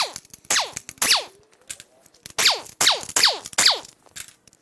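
Pneumatic air tool run in several short bursts, each starting sharply and whining down in pitch as the air motor spins down, with a pause of about a second in the middle. It is being used to loosen the main bearing cap bolts on the engine block.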